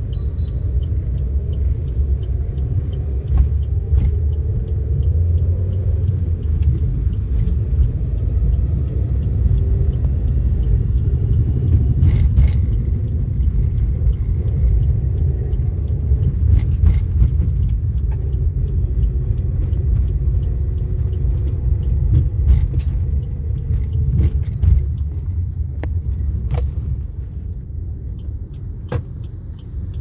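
Low, steady rumble of road and engine noise inside a moving car's cabin, with a few brief sharp clicks scattered through it; it grows somewhat quieter near the end as the car slows.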